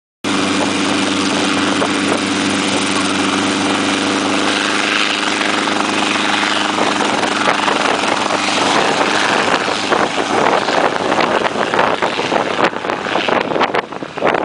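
Helicopter engine and rotor running steadily with a constant hum. After about seven seconds the sound turns rougher and more uneven, with gusty noise like wind on the microphone.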